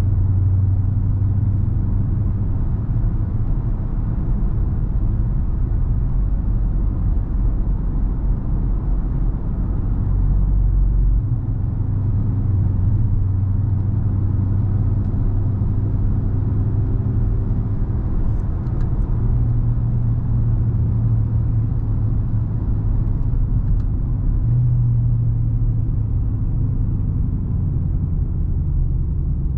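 Dodge Charger R/T's 5.7-litre HEMI V8 running under way with a steady low drone. Its pitch steps a few times: about a third of the way in, and twice more later on.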